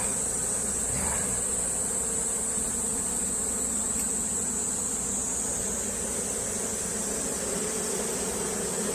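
A mass of Korean native honeybees buzzing steadily around their opened nest, a continuous low hum, with a steady high-pitched insect whine over it.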